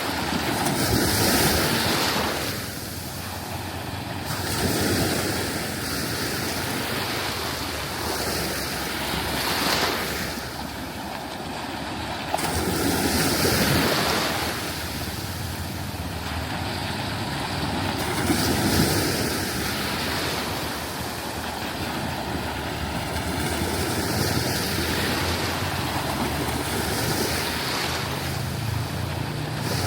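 Sea waves breaking and washing onto a sandy beach, the surf swelling and fading every few seconds.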